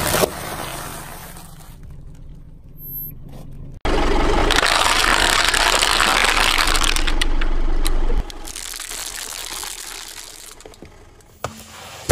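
Car tyre rolling over objects. A sealed snack bag bursts with a short pop at the start, then the tyre crushes thin plastic character masks with about four seconds of loud, steady crackling and crunching that cuts off suddenly.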